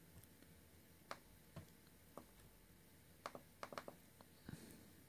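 Computer mouse button clicks against near silence: a few single clicks, then a quick cluster of clicks about three and a half seconds in, as folders are double-clicked open.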